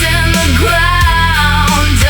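Loud heavy rock music, with a held melody line bending slowly in pitch over a dense, steady low end.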